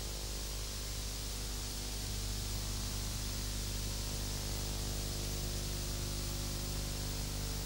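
Steady hiss with a low, unchanging hum: the background noise of the recording itself, with no other sound over it.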